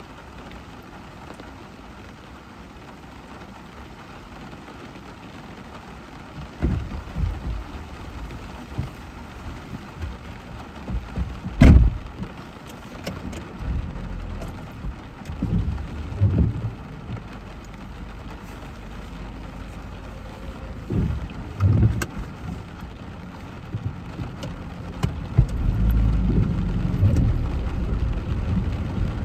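Rain on a car driving through a thunderstorm: a steady wash of rain, then repeated low rumbles. A sharp crack about twelve seconds in is the loudest sound, a smaller one comes later, and the low rumble grows louder near the end.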